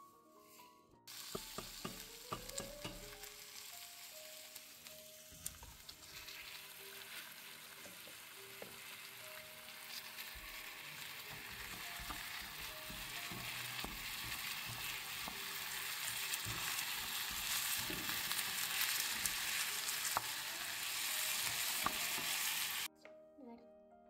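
Food sizzling and crackling in a hot frying pan, with sharp little pops throughout, growing steadily louder. It starts abruptly about a second in and cuts off abruptly near the end. Soft solo piano plays underneath.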